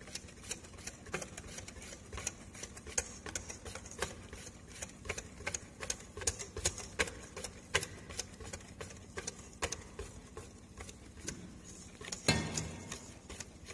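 A mixing utensil stirring batter in a stainless steel bowl, clicking against the metal about twice a second as flour is worked into egg yolk mixture, with one louder knock near the end.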